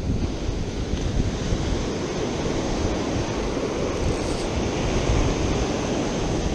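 Ocean surf washing steadily onto the beach, with wind buffeting the microphone and adding a low rumble.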